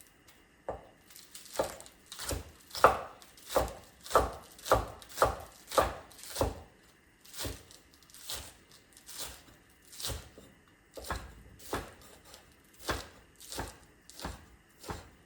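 Knife chopping green onions in steady strokes, about two a second, with a short pause about halfway through.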